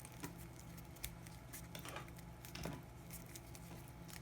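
Gaffer tape being wrapped and pressed around a coax cable's folded-back braided shield: faint, scattered crinkles and ticks over a low steady hum.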